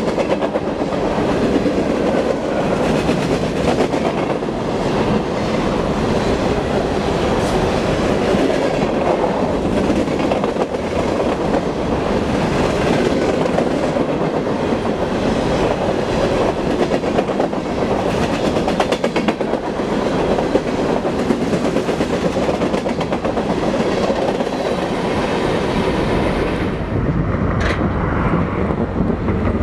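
Freight train of covered hopper cars rolling past at speed: a steady rumble and rattle of steel wheels, with rapid clicking over the rail joints. About three seconds before the end it gives way to a duller, lower rumble.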